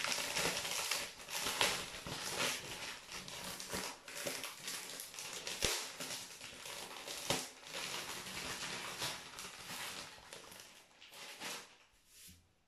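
Card packets and their wrapping being handled: continuous crinkling and rustling of plastic packaging, with a couple of sharper clicks about halfway through, fading out near the end.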